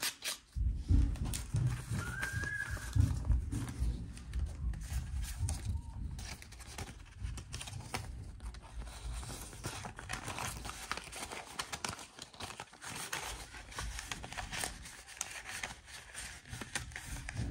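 Paper banknotes and envelopes being handled: irregular rustling and crinkling with soft dull thumps.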